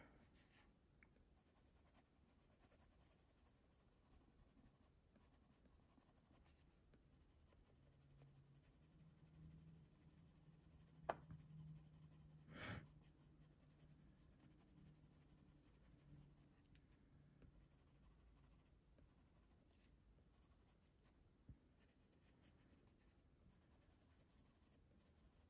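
Faint scratching of a Faber-Castell Polychromos coloured pencil shading on a colouring-book page, with a single sharp click about eleven seconds in and a short soft noise just after.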